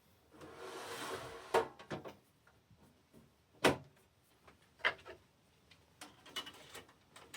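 Handling sounds from working on a desktop computer case: a short sliding scrape near the start, then a few separate clicks and knocks.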